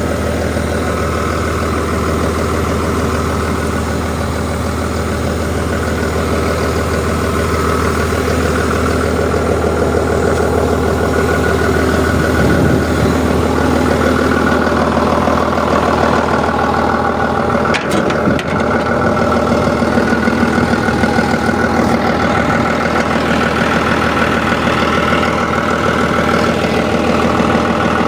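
An engine running steadily at idle, a little louder in the second half, with one sharp click about eighteen seconds in.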